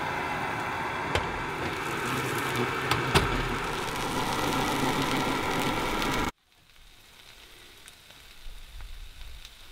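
Food frying in a pan: a steady sizzle with a few sharp pops. It cuts off abruptly about six seconds in, leaving a much quieter hiss.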